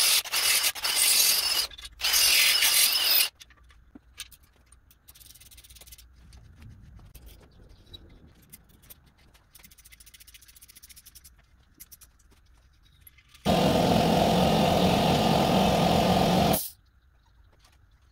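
Cordless drill running in two short bursts, drilling out head-stud holes in a cast-iron LS engine block through a drill-guide fixture. Fainter scraping and ticking follow, then another loud steady run of about three seconds near the end.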